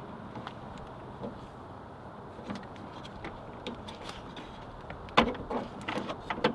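Screwdriver prying a clipped-in plastic trim piece off a 2000 Toyota Camry door panel: light scattered ticks, then a run of sharp plastic clicks about five seconds in as the clips let go.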